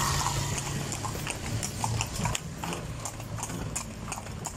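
Hooves of two carriage horses clip-clopping on an asphalt road, a quick, uneven run of hoof strikes.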